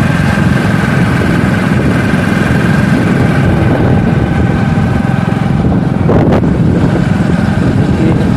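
Motorcycle engine running steadily while riding along, heard from on the bike, with a brief rush of noise about six seconds in.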